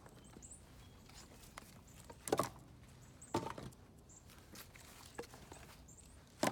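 Split firewood knocking as pieces are stacked into a poly cart: three separate knocks, the last near the end, with light shuffling and small clicks between.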